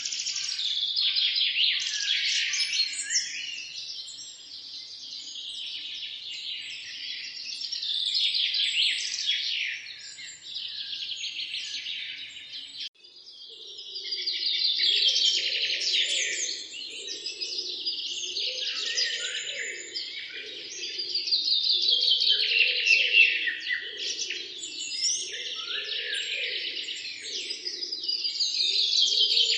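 A dense chorus of songbirds chirping and trilling, many calls overlapping. About 13 seconds in, the sound breaks off for an instant, then resumes with a lower, pulsing call repeated underneath the chirps.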